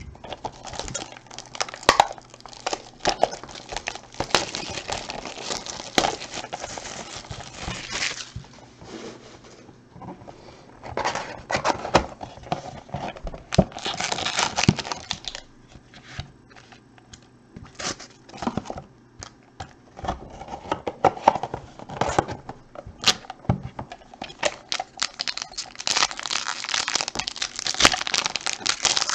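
Baseball card packaging being torn open and its wrappers crinkled by hand. The tearing and crinkling come in irregular spells broken by sharp clicks.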